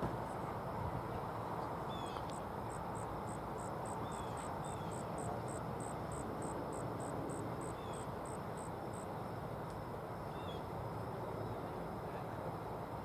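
An insect chirping in short high-pitched pulses, about three a second, that start about two seconds in and stop about nine seconds in, with a few faint short chirps. Steady outdoor background noise runs underneath and is louder than the chirping.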